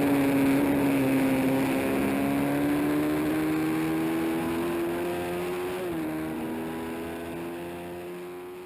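Honda CB350 race motorcycle's parallel-twin engine running at high revs. The pitch climbs slowly, dips briefly about six seconds in, and the sound grows fainter toward the end.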